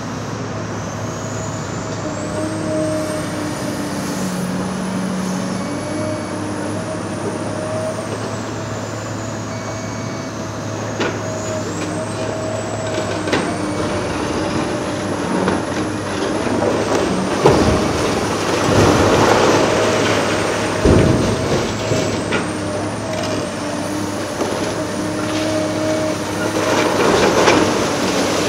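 Large hydraulic demolition excavator working: a steady diesel engine note with a high hydraulic whine that rises and falls as the machine moves. From about halfway on come sharp cracks and crunching of demolition debris, loudest about two-thirds in and near the end.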